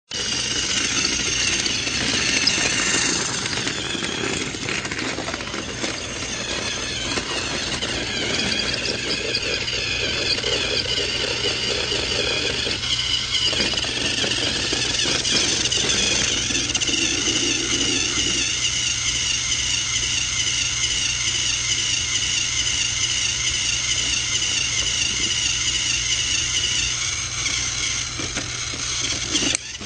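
A small motor running steadily with a high squealing whine over a steady low hum.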